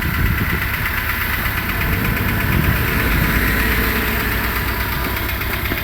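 Renault Logan engine idling during warm-up after a cold start, with a fast, even rustling, chattering tick over the running; a knock that the owner can't place as knock or rustle and thinks may be normal for these engines.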